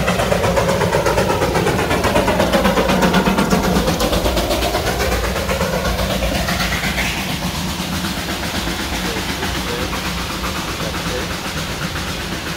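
Coal-fired steam locomotive of the narrow-gauge Darjeeling Himalayan Railway chuffing past close by with its carriage, in a quick, even rhythm of exhaust beats. It is loudest about three seconds in as it passes, then fades as it moves away.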